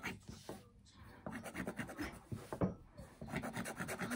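Pointed plastic tool rubbing along a cotton fabric seam against a wooden tabletop: runs of quick, scratchy strokes as the turned neckline seam is worked flat.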